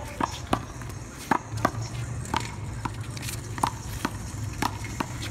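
One-wall handball rally: a rubber handball smacked by hand and bouncing off the wall and pavement, giving a string of sharp, irregular smacks, some much louder than others.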